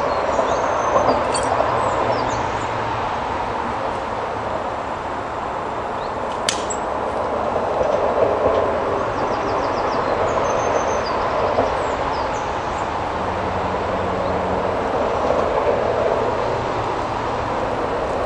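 A steady rushing noise with no clear pitch, with short high chirps from birds here and there and one sharp click about six and a half seconds in.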